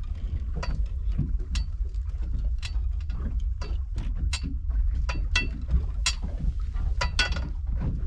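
Irregular sharp metallic clicks and clinks, roughly two a second, some with a short ring, as a fishing handline is hauled in hand over hand over the boat's side. Beneath them runs a steady low rumble.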